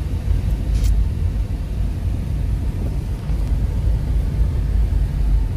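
Steady low rumble of road and engine noise inside a moving car's cabin, with one faint short click about a second in.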